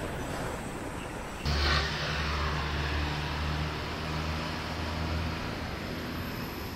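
Road traffic noise: a truck passing, then a steady low engine hum that starts abruptly about a second and a half in and eases off near the end.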